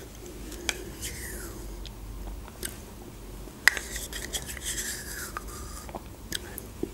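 Quiet eating sounds: a metal teaspoon scraping and clicking in a small plastic yogurt cup, with soft lip and mouth noises of eating yogurt. There are a few sharp clicks, the sharpest just past the middle.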